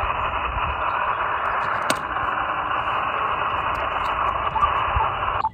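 Static from an Elecraft KX2 HF transceiver's speaker on single sideband: steady band noise in the receiver's narrow voice passband while the frequency is open and no station answers the CQ call. A faint click about two seconds in, and the hiss cuts off abruptly near the end.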